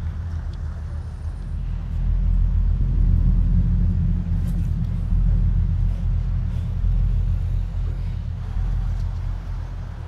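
Deep, steady low rumble of road traffic. It grows louder about two seconds in and eases off after about eight seconds.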